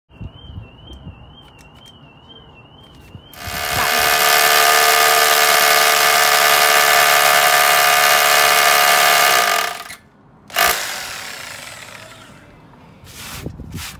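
Metabo hammer drill with a masonry bit boring a 20 mm pilot hole into a concrete slab. It runs loud and steady for about six seconds, then stops. A sharp knock comes about a second after it stops, and a few light clicks follow near the end.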